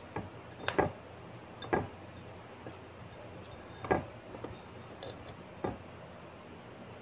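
Table-side eating noises: a utensil and hands knocking and clicking against a ceramic plate and bowl, about half a dozen short, sharp, irregularly spaced knocks.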